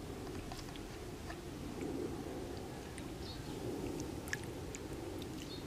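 Hands working through wet mud, with scattered small clicks and soft squelches over a steady low background noise.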